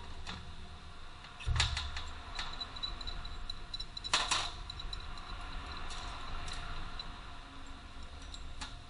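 Metal tools and parts being handled: a few separate sharp clinks and knocks, with a run of faint light ticks in between and a low hum underneath.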